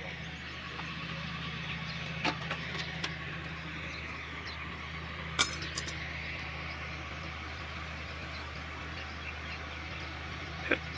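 Steady low engine hum with no beat of firing strokes, broken by a few sharp metallic clinks, the loudest about halfway through, from tools and fittings knocking on a stopped stationary diesel engine.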